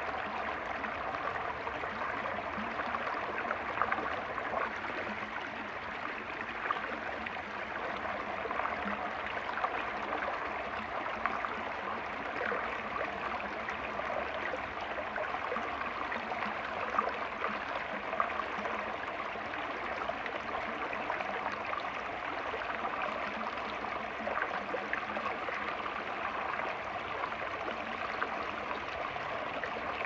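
Shallow rocky stream running steadily, water splashing and gurgling over and between boulders in small cascades.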